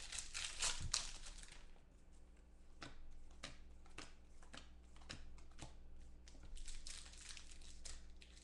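Plastic trading-card pack wrapper crinkling as it is torn open, then the cards being flicked through one at a time with light snaps about every half second, and another wrapper crinkling near the end.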